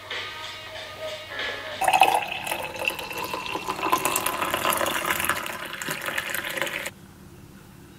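Background music, joined about two seconds in by a loud rush of running water, which stops suddenly along with the music about a second before the end.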